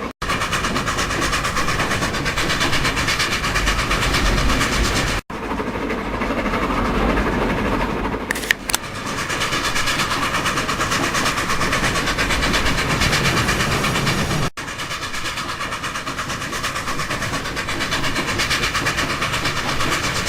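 Steam train running, with a fast, steady rhythmic clatter of exhaust and wheels. It breaks off abruptly and restarts three times.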